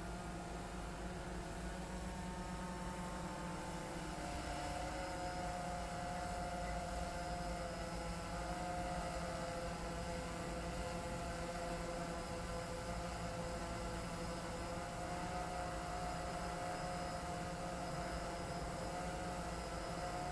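DJI Phantom 3 Standard quadcopter's propellers humming steadily in flight, several close tones shifting a little in pitch as the motors adjust.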